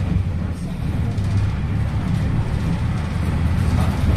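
Interior of a PAZ-320402-05 bus under way: the diesel engine's steady low drone with road and body noise around it.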